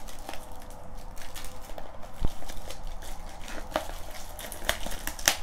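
Plastic shrink-wrap being peeled off a cardboard card-deck box: irregular crinkling and crackling with a few sharp snaps, the loudest near the end.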